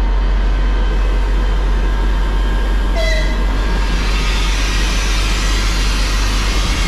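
Locomotive running steadily as it moves off on its own, with a short toot about three seconds in.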